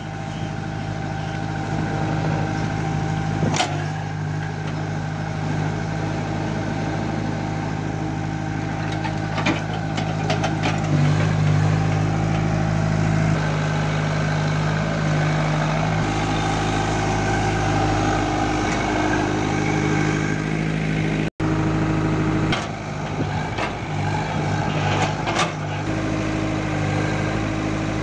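Tata Hitachi EX70 mini excavator's diesel engine running steadily, its note stepping up about eleven seconds in and shifting a few more times, with a few sharp clicks and knocks over it.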